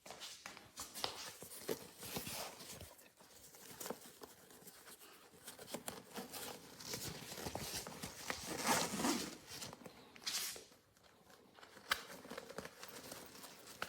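A tactical backpack being handled: irregular rustling and scraping of its fabric and straps, loudest about two-thirds of the way through, with a few sharp clicks.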